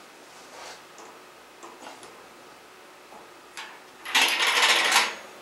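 Metal wire shelf being fitted onto the tops of metal shelving posts: a few light metal taps, then about a second of loud rattling as the shelf goes onto the posts.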